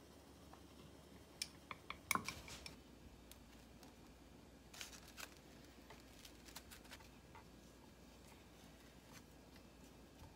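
A utensil clicking against a small ceramic bowl while powder and water are stirred together, with a knock just after two seconds. Later come a few more light clicks and taps of kitchen handling on a wooden cutting board.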